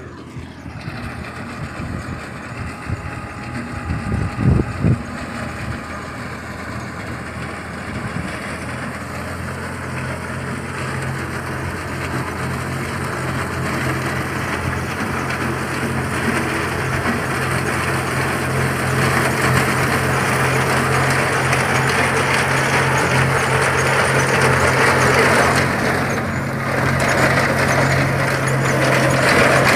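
A tractor engine runs steadily while it drives a tractor-mounted reaper binder through the crop, growing louder as the machine comes closer. There are a few low thumps about four seconds in, the loudest moments, and a rising mechanical rattle builds up in the second half.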